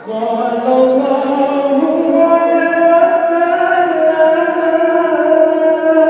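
Music with singing: long, held notes that slide slowly from one pitch to the next, starting suddenly at the outset.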